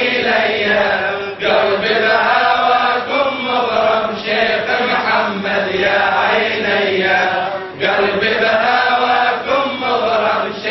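A man chanting a Sufi qasida, a devotional poem, unaccompanied. He sings in long, wavering held phrases and breaks off briefly about a second and a half in and again near eight seconds.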